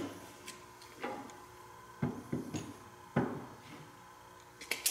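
A handful of separate knocks and clunks, roughly a second apart, from hard objects handled on a tabletop: a cordless drill set down and a wooden handrail picked up and moved. Nothing runs steadily.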